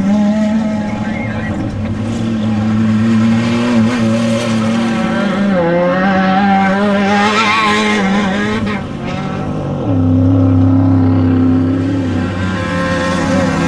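Off-road desert race vehicle engine running hard at steady revs; its pitch steps down about five seconds in and jumps back up near ten seconds in.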